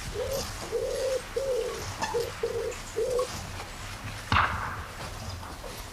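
A pigeon cooing, a run of short low coos of uneven length over the first three seconds or so. A single sharp knock about four and a half seconds in.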